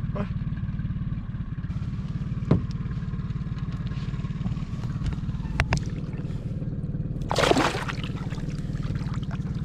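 Boat's outboard motor running steadily with a low hum, with a few light knocks and a short rush of noise about three quarters of the way through.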